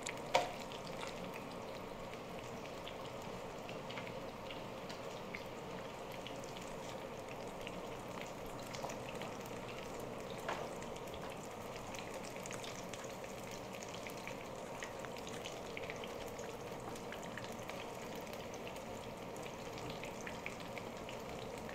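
Baigan (eggplant) frying in a pan of hot oil: a steady, soft sizzle with many small scattered crackles and pops.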